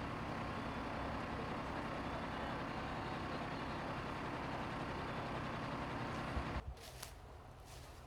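Heavy truck diesel engine running steadily at a fire scene. About six and a half seconds in it cuts off abruptly, leaving a much quieter background with a few sharp clicks.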